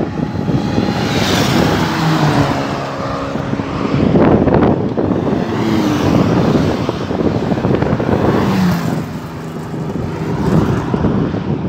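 Road traffic passing at highway speed: a car and a motorcycle and then further cars go by one after another, tyre roar swelling with each pass and engine notes dropping in pitch as each vehicle goes past.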